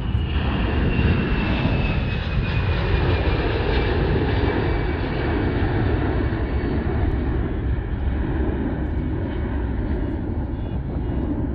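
Boeing C-17 Globemaster III's four turbofan engines at takeoff power: a loud, steady jet roar with a high whine that slowly falls in pitch over the first few seconds.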